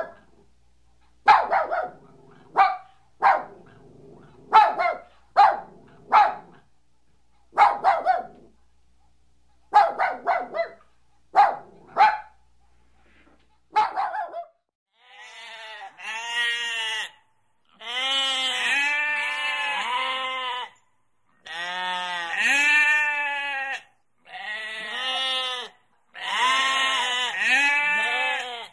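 A dog barks a dozen or so times, in single barks and quick pairs. About halfway through it gives way to sheep bleating in about five long, quavering calls, each one to three seconds.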